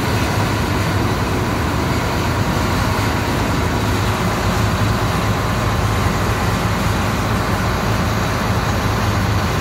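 John Deere 7720 Titan II combine's six-cylinder diesel engine running steadily, warming up after a cold start in freezing weather.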